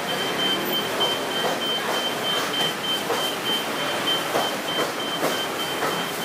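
Covered market ambience: steady background hubbub with scattered snatches of distant voices. A thin high-pitched electronic beep pulses rapidly and evenly throughout.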